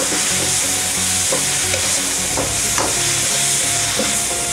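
Onions, garlic, ginger and chilis sizzling in a hot wok with sweet soy sauce just added, a steady high hiss. A spatula stirs them, scraping and knocking against the wok several times.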